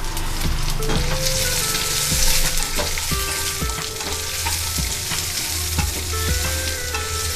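Small onions (shallots) frying in hot oil with whole spices in a pan, a steady sizzle, with a spatula stirring and knocking against the pan now and then.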